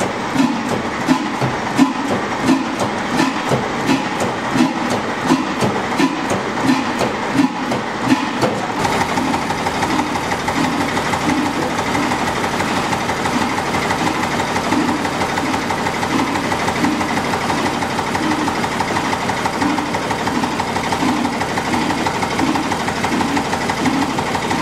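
Ruston horizontal stationary engine running slowly, its big flywheel turning, with a steady heavy beat about three times every two seconds. About nine seconds in the sound changes to another stationary engine running with a faster, busier clatter.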